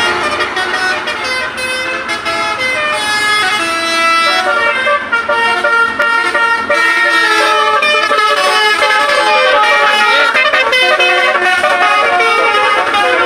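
Basuri musical car horns playing a melody: several horn tones at once, stepping from note to note, getting louder about four seconds in.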